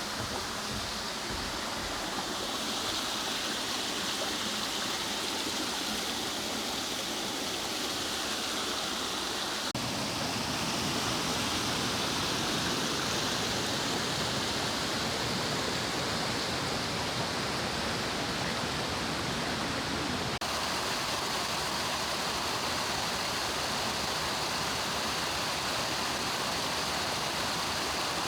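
Mountain stream water running steadily over rocks. The character of the water sound changes abruptly twice, about ten and twenty seconds in, as one stretch of stream gives way to another.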